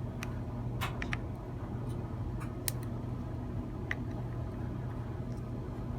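Scattered light clicks and ticks of a micro screwdriver and small metal parts on a spinning reel's bail arm as its tiny screws are worked, over a steady low hum.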